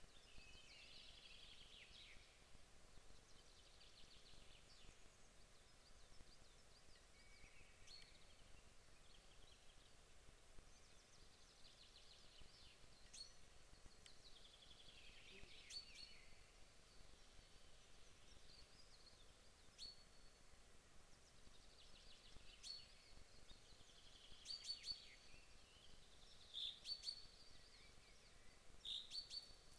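Faint songbirds singing: short trilled phrases that drop in pitch and come every few seconds, with sharper high chirps near the end, over a quiet background hiss.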